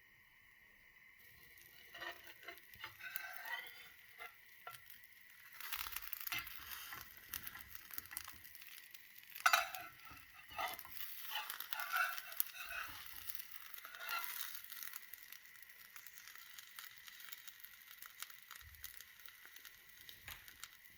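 Food sizzling and crackling in a frying pan, with a utensil scraping and stirring against the pan in uneven bursts; the stirring is busiest through the middle, with one louder clatter about halfway.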